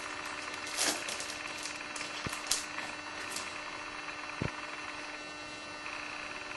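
Trading cards being handled and flipped through: a few short papery slides and flicks in the first three seconds or so, and two soft low knocks, over a steady background hum.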